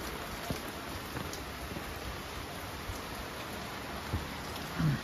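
Rain falling steadily, an even hiss, with a short vocal sound near the end.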